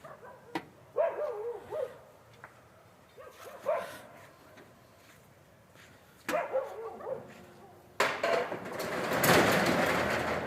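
A dog barking several times. About eight seconds in, a loud rushing noise rises to a peak and then fades.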